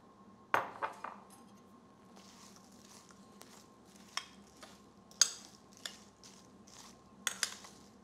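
Metal spoon stirring cranberries and sugar in a glass baking dish: sharp clinks of the spoon against the glass come in small clusters, with a soft rustle of berries and sugar between them, over a faint steady hum.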